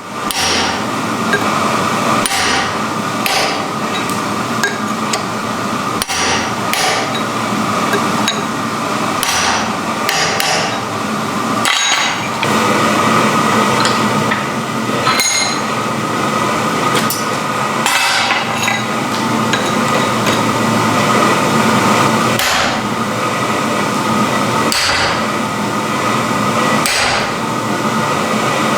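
Hand-hammer blows on iron at the anvil, struck at an uneven pace about once every second or two, over a steady background noise.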